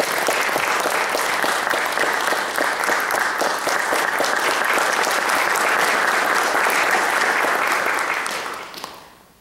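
Audience applauding, a dense patter of many hands clapping that dies away about eight and a half seconds in.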